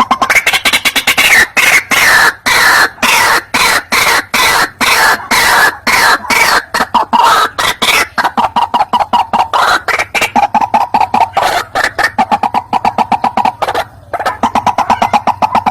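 White-breasted waterhen calling: a loud, fast run of repeated short notes that quickens after about eight seconds, with a brief break near the end.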